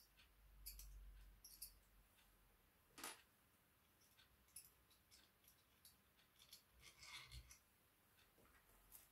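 Faint, scattered clicks and light scrapes of small metal hardware being handled: a 2 mm Allen wrench on a tiny bolt at the laser engraver's aluminium frame and a crimped wire ring terminal, with one sharper click about three seconds in.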